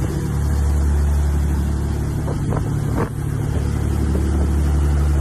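Sportfishing boat's engines running steadily under way while trolling, a loud low drone over the rush of the wake.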